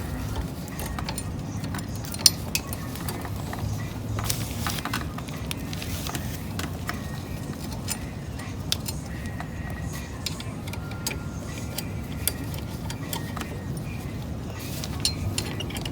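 Scattered light metallic clicks and clinks of a 5 mm Allen key working hex bolts loose at a car's rear wheel hub, the sharpest about two seconds in, over a steady low hum.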